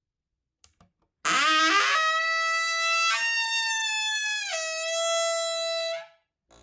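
Door hinge creaking in one long, drawn-out squeal. It rises in pitch over about its first second, holds a steady high tone, jumps higher around the middle, drops back, and stops abruptly near the end.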